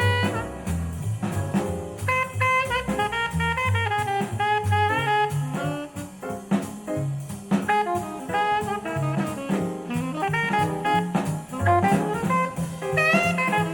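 Jazz music played back over JBL 4307 studio monitor loudspeakers, with a melody line over steady bass notes and drums.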